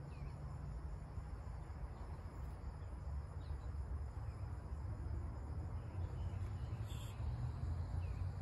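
Summer woodland ambience: faint insect chirping and a few short, faint chirps over a steady low rumble, with a brief buzz near the end.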